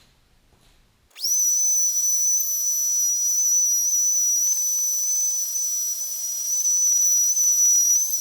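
Power grinder spinning up about a second in, then running with a steady high-pitched whine.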